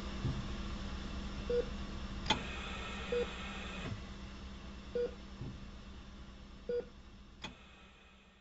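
Hospital patient monitor beeping slowly and evenly, four short single-pitch beeps spaced a little under two seconds apart, over a steady hum. Two faint clicks fall about two and seven and a half seconds in, and the whole sound fades down towards the end.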